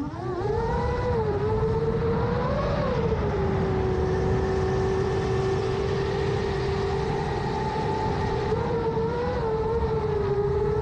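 Brushless motors of a seven-inch FPV quadcopter with 2806-size motors, whining in flight over steady propeller wash. The pitch climbs and wobbles with throttle in the first few seconds, holds steady through the middle, and rises briefly again near the end.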